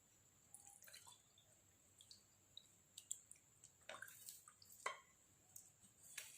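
Faint, scattered drips and light ticks of boiled herbal water dripping through a strainer into a glass.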